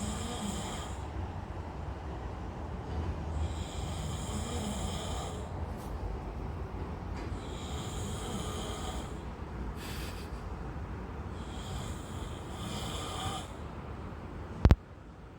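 A man snoring loudly, a rasping snore about every four seconds over a low rumbling breath. A single sharp knock comes near the end.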